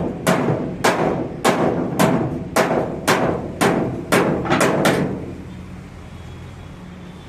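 Hammer blows on sheet steel, about two a second and ringing briefly, ten or so strikes that stop about five seconds in, leaving a low steady hum.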